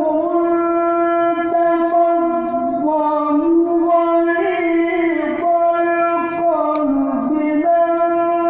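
A woman's voice chanting a Quran recitation (tilawah) in the melodic style. She holds long, steady notes for a second or more and breaks into short, ornamented turns between them.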